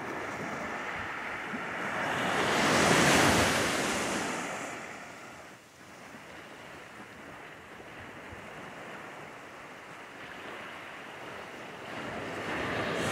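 Small waves breaking and washing up onto a sandy beach, the surf swelling loudest about three seconds in and again near the end.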